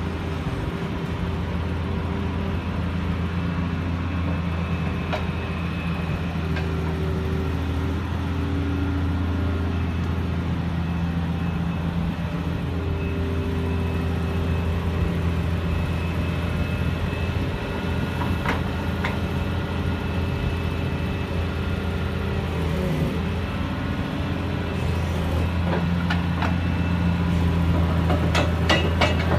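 Caterpillar 330CL excavator's C-9 six-cylinder diesel engine idling steadily with a deep, even hum. A quick run of rattling clicks comes near the end.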